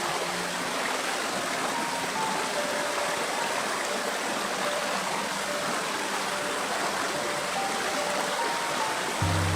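Stream water rushing steadily under soft background music: a slow melody of single held notes, with a low chord coming in near the end.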